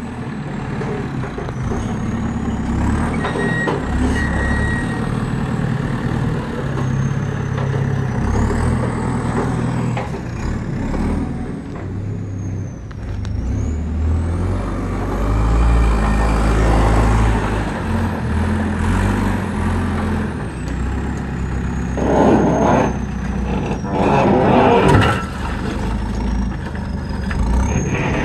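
Heavy diesel construction machinery running, its low engine note stepping up and down under changing load, with a thin high wavering whine over it. About 22 and 24 seconds in come rough scraping bursts.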